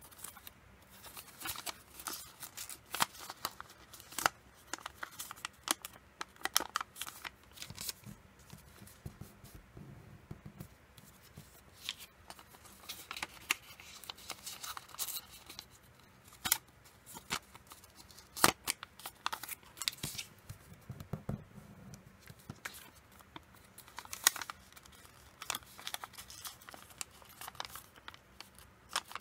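Origami paper crinkling and rustling in the hands as a corner is rolled and tucked under, with irregular sharp crackles.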